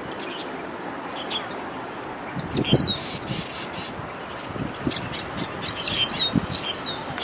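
Long-tailed shrike giving short, sharp chirps and quick rising and falling calls, in bouts about two and a half seconds in and again from about five seconds in, over a steady hiss. A few low thumps sound with the calls, the loudest about two and a half seconds in.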